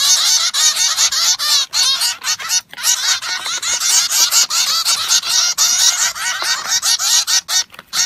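A small flock of zebra finches calling all at once, a dense chatter of many short, quick calls overlapping without a break.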